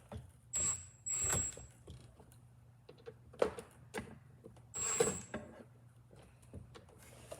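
Cordless drill driving the screw of a worm-gear hose clamp in short bursts to tighten it onto the drain tube: three brief whirs with a thin high whine, one near the start, one just after a second in, and one about five seconds in, with a sharp click between them.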